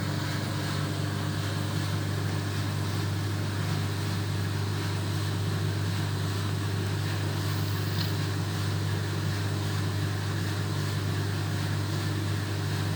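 1970s Creda Compact 3 tumble dryer running, a steady low hum with an even airy rush over it. It sounds quiet and very smooth for a 41-year-old machine.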